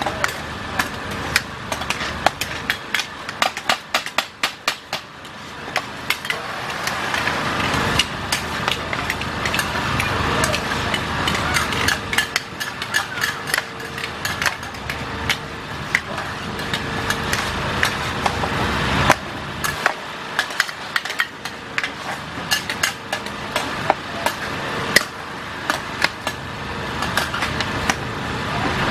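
Metal spatulas clanking and scraping against a large flat wok as a big batch of fried flat rice noodles with bean sprouts is tossed. Rapid clanks run a few seconds in, then come more spread out over a steady hiss.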